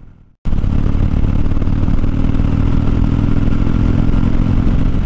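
Harley-Davidson Dyna Fat Bob's V-twin engine running steadily while the motorcycle cruises along an open road. It cuts in suddenly about half a second in, after a brief silence.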